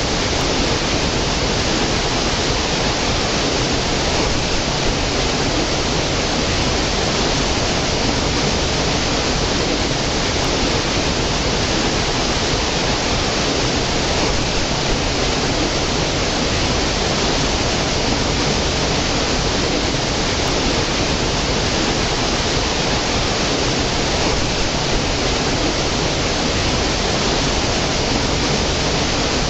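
Small stream cascading over rocks into a pool: a steady, unbroken rush of running water.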